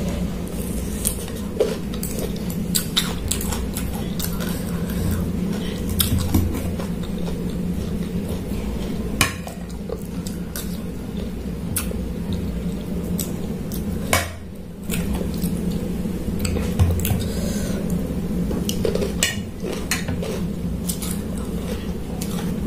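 Metal spoon and fork clinking and scraping against a plate in scattered short clicks, over a steady low hum.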